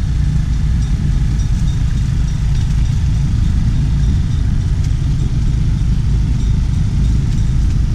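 Steady low rumble of a vehicle moving along a dirt path, with wind on the microphone.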